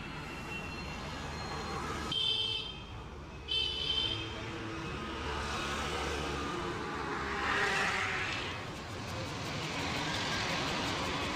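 Street traffic noise with vehicles passing, and two short high-pitched tones about two and three and a half seconds in.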